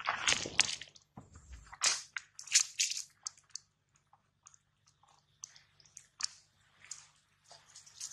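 Macaque chewing and biting food: irregular crunching and wet smacking sounds in quick, uneven clusters, with a couple of dull low bumps in the first two seconds.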